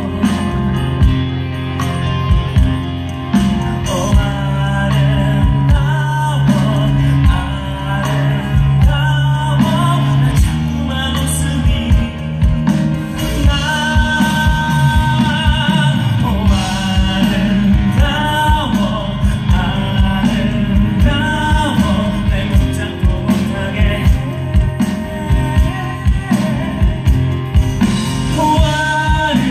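Live band playing a pop-rock song, with a male lead singer over drums keeping a steady beat.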